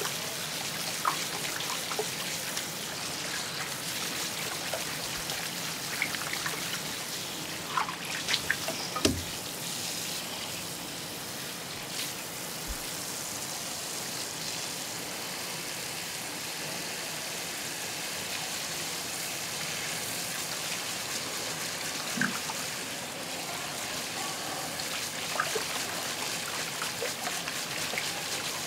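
Tap water running steadily from a faucet aerator into a steel bowl while gloved hands swish a fish around in the water, with a few sharp clicks along the way.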